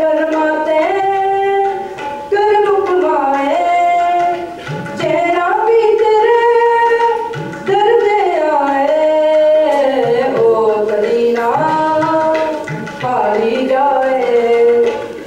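A solo male voice singing a Punjabi Sufi devotional song through a microphone, holding long wordless notes that slide and step up and down in ornamented runs, with light drum strokes underneath.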